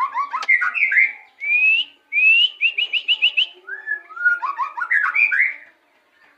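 White-rumped shama (murai batu) singing: varied clear whistled phrases with rising slurred notes and a quick run of about six repeated notes, falling silent near the end.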